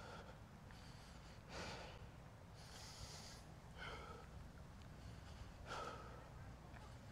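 A runner's faint, heavy breathing as he walks to recover from a running interval, one breath every second or two.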